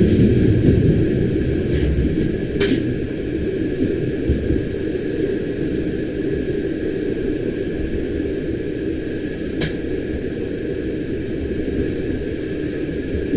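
Bernina Express train running, a steady low rumble from inside the carriage with a faint steady whine, broken twice by a sharp click about seven seconds apart.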